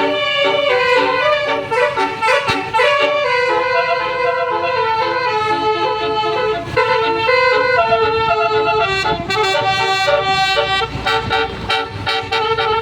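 A tour bus's telolet basuri musical air horn playing a tune, note after note, over the low sound of the bus.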